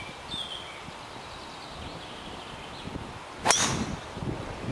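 Golf driver striking the ball off the tee about three and a half seconds in: a single sharp, ringing crack, the loudest sound here. Birds chirp faintly near the start.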